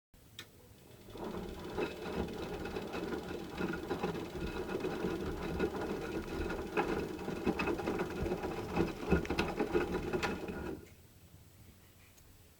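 Washing machine drum turning under its motor, a steady mechanical run with scattered knocks from the load inside. It starts about a second in and stops suddenly near the end.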